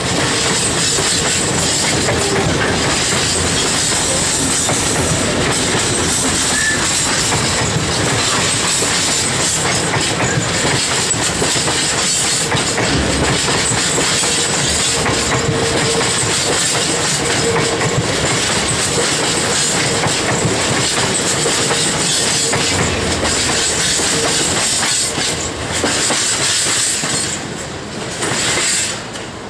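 A long rake of Freightliner bogie coal hopper wagons rolling past, wheels clattering over the rail joints, with a faint squeal now and then. The sound drops away near the end as the last wagons go by.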